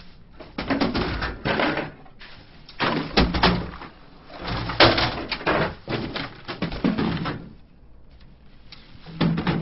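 Knocks, thuds and clatter of objects being bumped and shifted while someone rummages through a small room searching for something, together with the handling noise of a webcam being carried around. It comes in several bursts of sharp strokes and goes quieter for a moment shortly before the end.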